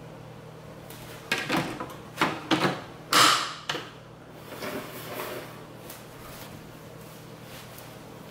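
Plastic front grille of a Bionaire tower air purifier being fitted back over its HEPA filter: a run of sharp plastic knocks and clatters, the loudest a little after three seconds in, followed by a few softer handling sounds. A steady low hum continues underneath.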